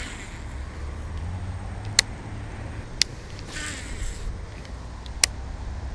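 A baitcasting rod and reel being handled: three sharp clicks, with a short hiss about halfway through, over a low steady rumble.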